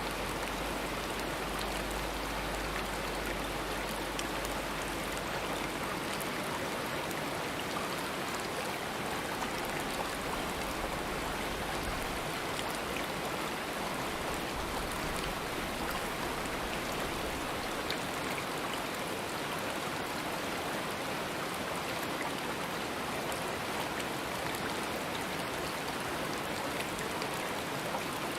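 Stream water running and splashing steadily over rocks.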